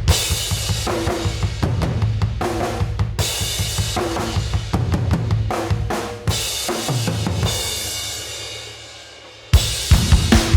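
Recorded rock drum kit playing a loud, busy beat with kick, snare and cymbals. A little past six seconds in, the beat stops on one big hit that rings and fades for about three seconds, then the beat starts again abruptly near the end.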